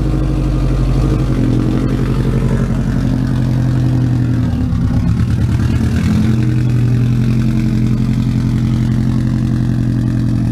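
Subaru WRX flat-four engine running through a homemade straight-pipe exhaust with no muffler: a loud, steady idle. Around the middle the pitch drops for about a second and a half, then settles back to the idle.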